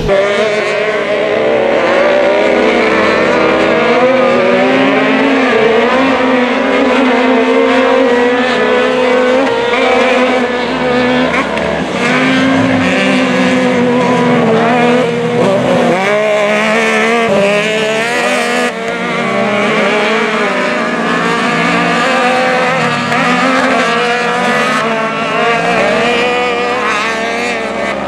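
Yamaha YXZ1000R racing side-by-side UTV engines, three-cylinder, running hard on a dirt track. Their pitch rises and falls with throttle and gear changes. The sound changes abruptly a few times.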